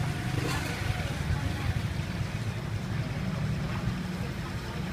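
Street-stall background noise: a steady low rumble with faint voices in the distance.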